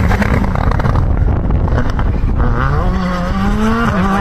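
Rally car passing close and accelerating away, its engine pitch climbing steadily through the second half, then dropping sharply near the end at an upshift before climbing again.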